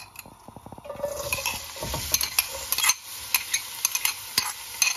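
Chopped onions tumbling into hot cooking oil in an aluminium pot, which begins to sizzle and crackle about a second in as the onions start to fry.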